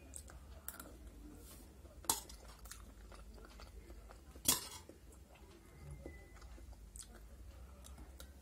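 Soft chewing of pasta, with a sharp click about two seconds in and a louder clink of a spoon against a steel plate about four and a half seconds in.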